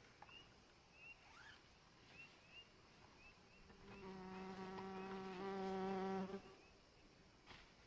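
A flying insect buzzing close by as a steady hum for about two and a half seconds, starting about four seconds in. Before it comes a string of faint, short, high chirps.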